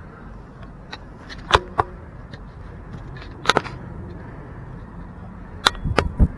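Handling noise from working a landing net and a fish by hand: a handful of sharp clicks and knocks, the loudest about one and a half seconds in, over a steady low outdoor rumble.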